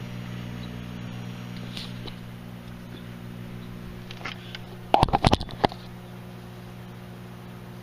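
Microwave oven running with its steady high-voltage hum and fan motor. About five seconds in comes a quick burst of loud, sharp pops lasting about half a second: the electrolytic capacitor being cooked inside starts popping.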